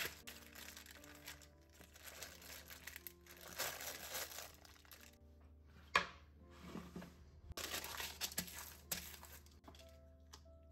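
Baking paper crinkling and crackling under a rolling pin as a bar of chocolate wrapped in it is crushed, over soft background music. A single sharp knock comes about six seconds in, then a shorter stretch of crinkling.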